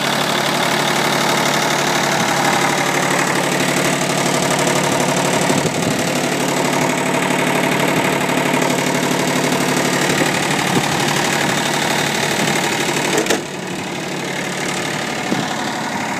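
John Deere 855 compact tractor's three-cylinder diesel engine running steadily at idle. About 13 seconds in there is a short click, and the engine sound is a little quieter after it.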